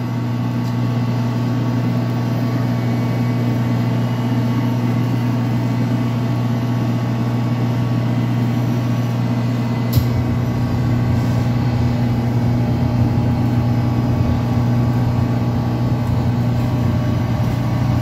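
Steady low machine hum of commercial kitchen equipment, with a single sharp click about ten seconds in.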